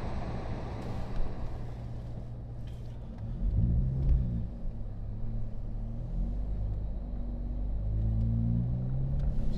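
Car engine running with a steady low drone, revving up and back down twice, about three seconds in and again near the end, as a car tries to pull free of deep snow.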